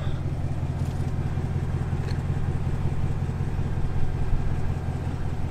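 2022 GMC Sierra AT4X's 6.2-litre V8 idling steadily, a low even rumble.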